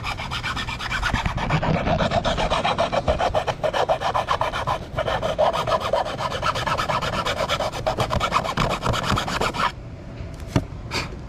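Small hand file rasping in quick back-and-forth strokes on the edge of a dash part, trimming it so it lines up. The filing stops abruptly about ten seconds in, followed by a couple of light clicks.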